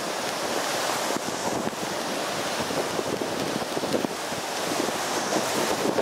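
Storm surf on a monsoon-rough sea: waves breaking and foam churning along the shore in a steady, continuous rush.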